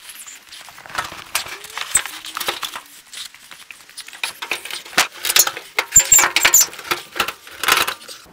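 A seat being pushed and fitted into an old pickup's cab: a run of sharp knocks and scrapes, thickest and loudest in the second half.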